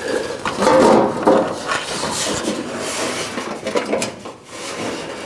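Sheet-steel inner wheelhouse panel being pushed and shifted into place in a car's rear wheel opening: irregular metal scraping, rubbing and clunking against the body, loudest about a second in.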